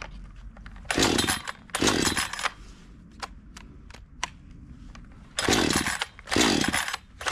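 Pull-starter of a Parkside PBKS 53 A2 53 cc two-stroke chainsaw being yanked four times in two pairs, with a fifth pull beginning at the very end, and small clicks between. Each pull is a short rasping whirr and the engine never catches: it fails to start on its first start-up.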